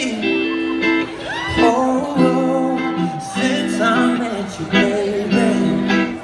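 Live band playing a slow song intro: sustained electric guitar chords over bass in a steady rhythm, with a singer's wordless vocal gliding over them.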